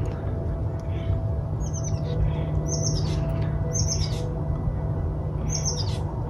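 Songbird chirping in short, high, falling phrases, repeated about every second or two over a steady low rumble.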